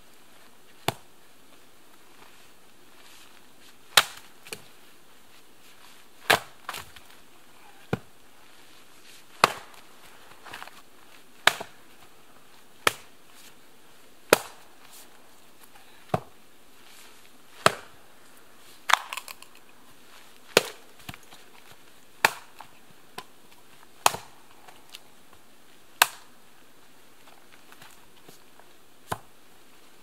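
Axe chopping firewood on a chopping block: a sharp chop about every one and a half to two seconds, some with a smaller knock just after.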